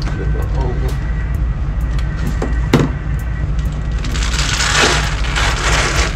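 Parts being pulled off an electric unicycle during teardown: a sharp click about three seconds in, then a couple of seconds of harsh scraping, ripping noise, over background music with a steady bass.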